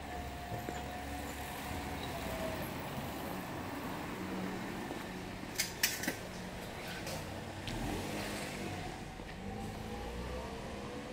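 Street traffic: a car's engine running steadily with road noise. A few sharp clicks or knocks come close together about halfway through.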